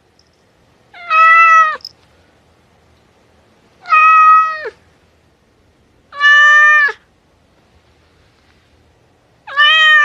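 A domestic cat meowing four times, each meow a clear drawn-out call of under a second, most ending with a drop in pitch, about two to three seconds apart.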